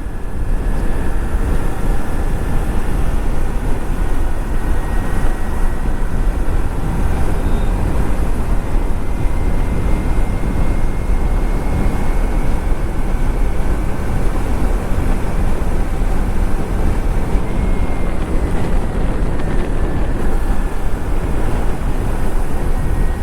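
Wind noise on the microphone and motorcycle noise while riding on the road at speed: a steady rush with no break.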